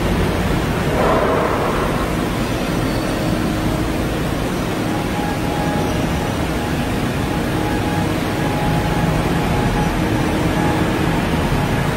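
Steady industrial machine noise from large running machinery: an even rumble and hiss with faint, steady whining tones. A brief swell of noise comes about a second in.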